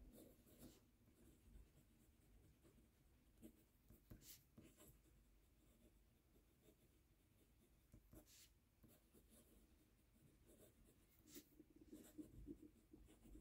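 Faint scratching of a fountain pen nib writing on Clairefontaine paper, in short, scattered strokes.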